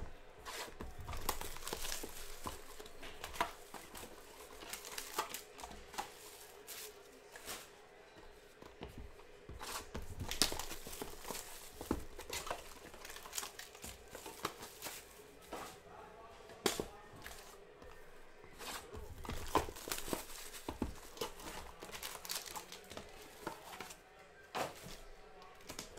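Wrapping on boxes and packs of Bowman Chrome baseball cards being torn open and crinkled, a run of irregular rips and crackles.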